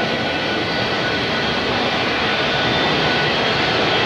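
Jet airliner engines running: a steady rush with faint, steady high-pitched whines.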